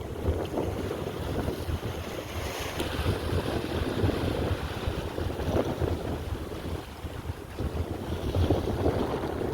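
Strong wind buffeting the microphone in uneven gusts, with sea surf beneath it.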